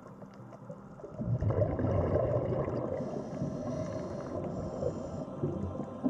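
Muffled underwater rushing and bubbling water noise, swelling about a second in and then running on.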